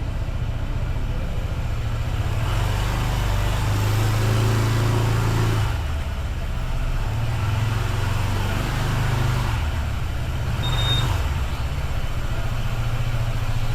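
Motor vehicle engine running low and steady with road or traffic noise; the engine note shifts down about halfway through. A short, high-pitched tone sounds briefly about eleven seconds in.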